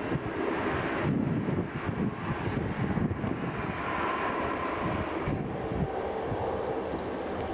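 Boeing 737-800's CFM56-7B turbofan engines running at high thrust as the jet begins its takeoff roll: a steady jet rumble, with a whine coming in about halfway through.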